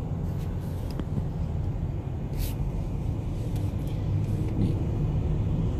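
Steady low rumble of a car's engine and tyres heard from inside the cabin while driving, with a brief hiss about two and a half seconds in.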